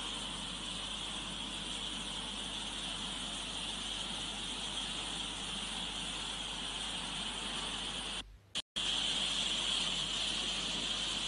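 Flash-flood water rushing in a torrent down a street, a steady noise. It cuts out for about half a second some eight seconds in, then carries on.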